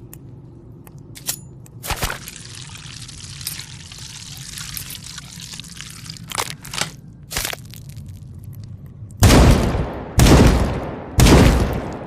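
Sniper rifle shots in a sound effect: three loud shots about a second apart near the end, each ringing out briefly. Before them come a few quiet clicks and a faint hiss.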